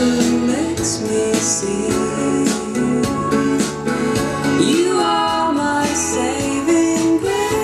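Recorded pop song played through Magneplanar speakers driven by a Phase Linear PL700 amplifier: a passage between sung lines with guitar, keyboard and a steady drum beat.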